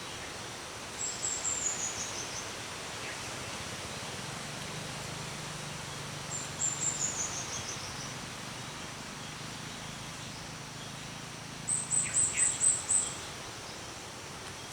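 A small songbird singing thin, very high phrases: twice a quick run of notes falling in pitch, then near the end a fast series of repeated notes at one pitch. Under it is a steady outdoor background hiss.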